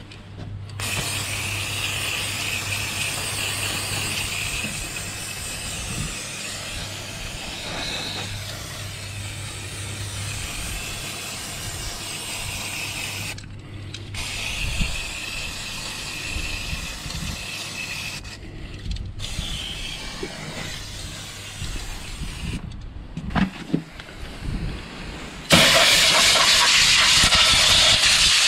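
Aerosol can of brake cleaner spraying onto a motorcycle's front brake disc and caliper: a steady hiss in several long bursts, with short breaks between them, much louder for the last few seconds.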